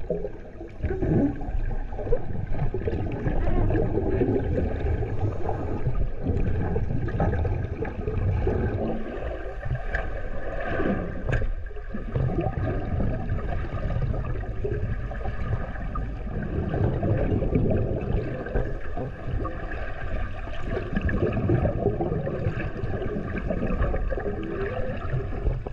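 Muffled underwater water noise from a camera held below the surface: a constant churning and sloshing with a low rumble, the sea surging around the cage.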